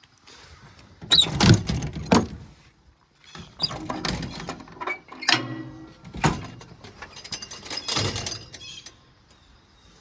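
A series of irregular heavy thunks and knocks, about nine of them over eight seconds, from equipment being handled, with fainter rattling between them; they die away about nine seconds in.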